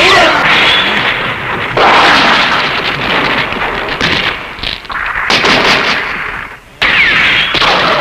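A run of loud, harsh blast-like sound effects, like explosions or gunfire, each lasting a second or more; new blasts start about two, five and seven seconds in.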